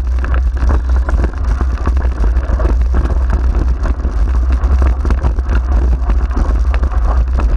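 Dog-drawn dryland mushing rig rolling fast over a bumpy dirt trail: steady rattling and knocking of the rig's frame and wheels over a heavy low rumble.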